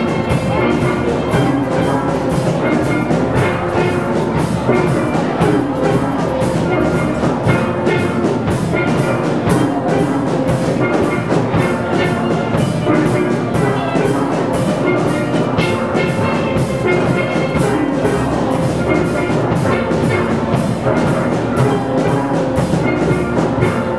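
Steel band playing carnival music: steel pans carrying the melody over a drum kit keeping a steady beat.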